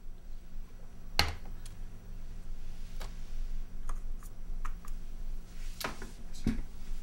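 A few separate clicks and knocks at a computer desk, keyboard keys and objects on the desktop, with a louder knock about a second in and another near the end, over a steady low hum.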